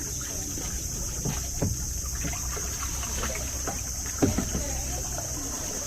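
Paddle boat being rowed through calm water, with faint murmured voices now and then and a steady high-pitched hiss throughout.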